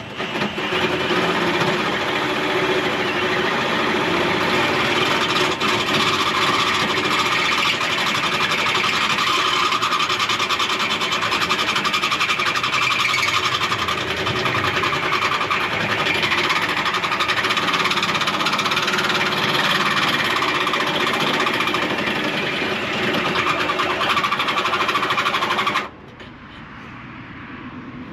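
Power drill running under load, its large bit boring a hole through the truck's radiator core support. It cuts out suddenly near the end.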